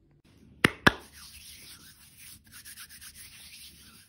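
Hands: two sharp claps close together, then about three seconds of palms rubbing together with a dry swishing rustle.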